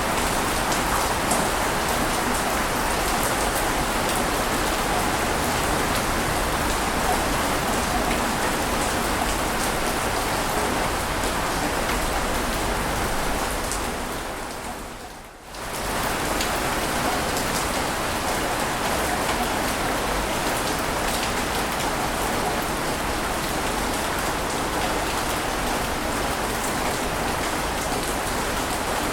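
Steady, dense rushing water noise with no distinct swells. About fifteen seconds in it fades down briefly and comes back up, as at the join of a looped ambience track.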